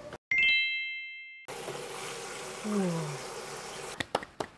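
A bright electronic chime, several tones sounding together, rings for about a second and then cuts off abruptly. Near the end come a few hand claps.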